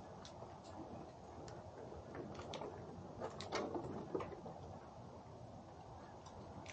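Faint outdoor background with scattered small clicks and ticks at irregular intervals, the clearest about three and a half seconds in.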